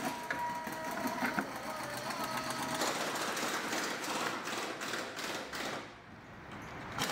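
A power tool running with a fast mechanical rattle while the old steering box is being unbolted. It dips briefly near the end and starts again.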